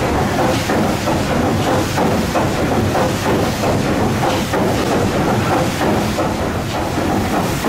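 The paddle steamer Waverley's three-cylinder triple-expansion diagonal steam engine running at speed. Its cranks and rods turn with a steady rhythmic beat of knocks over a constant hiss of steam.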